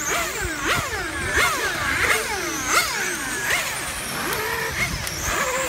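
Several 1/8-scale electric RC circuit cars racing past, their electric motors whining. Each whine rises and then slides down in pitch as a car goes by, one after another.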